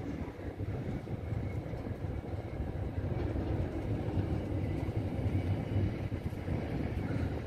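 Double-stack container freight train wagons rolling past: a steady, low rumble of steel wheels on rail.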